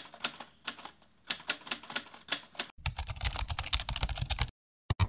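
Keyboard typing sound effect: irregular key clicks for the first couple of seconds, then a faster, denser clatter for about a second and a half, stopping suddenly, followed by a couple of sharp clicks near the end.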